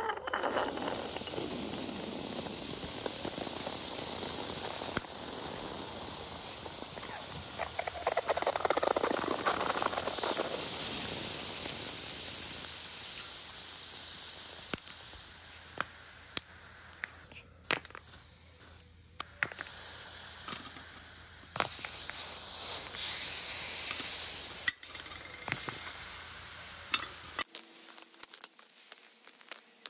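Hot aluminum ingots sizzling and hissing as they melt into blocks of ice. After about the midpoint the sizzle dies down and sharp cracks and pops from the ice come through.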